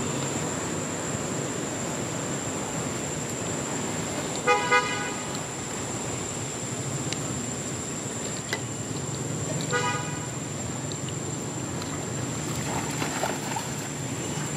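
A horn gives a quick double beep about four and a half seconds in and one more beep near ten seconds, over a steady background hiss with a constant high whine.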